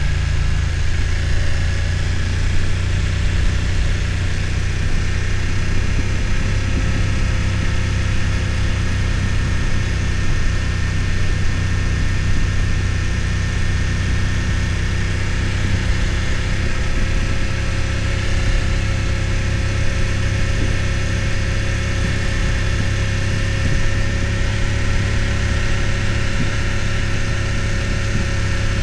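BMW F900 XR's parallel-twin engine running steadily at low revs, its pitch holding nearly constant, with no revving up or down.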